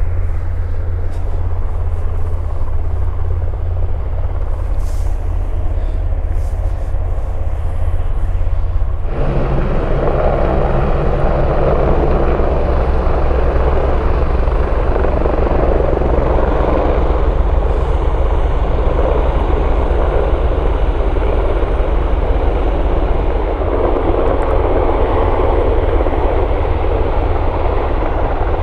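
Helicopters hovering and lifting off, an Airbus H175 and a Sikorsky S-92 in the later part: loud steady rotor thrum with engine noise. About nine seconds in the sound changes abruptly to a fuller, louder rush with a thin, steady high whine over it.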